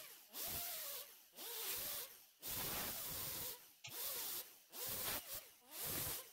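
Right-angle air grinder with a small sanding disc grinding down plug welds on a steel quarter panel in about six short passes. Its whine dips in pitch each time the disc bears on the metal.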